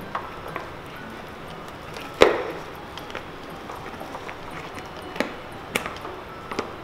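Hard plastic clicks and knocks as a clear plastic ball is handled and lifted out of a large plastic cup, with one louder knock about two seconds in and a few smaller ones near the end.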